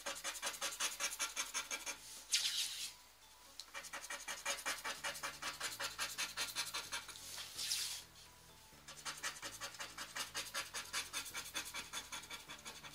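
Scratch-off lottery ticket being scratched with a hard tool, a quick back-and-forth rasping of about five strokes a second, with two short pauses, about three and eight seconds in.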